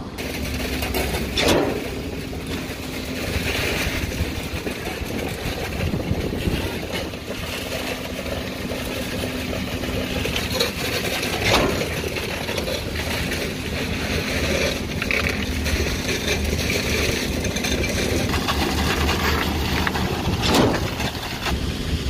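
CIFA truck-mounted concrete boom pump running steadily while pumping concrete, with a sharp knock about every nine to ten seconds, three in all.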